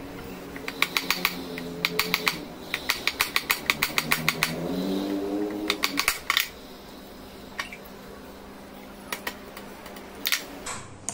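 Small hammer tapping a glued wooden cross-guard down onto the blade of a wooden scout knife: quick light taps in a fast run through the first half, then a few scattered single knocks.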